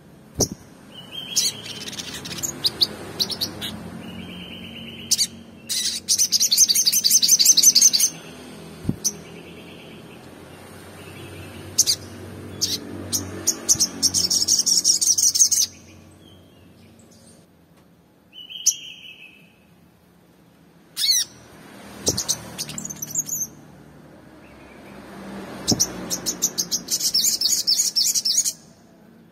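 Olive-backed sunbird singing: three fast, high trills of about two seconds each, with short chirps and sharp chips between them.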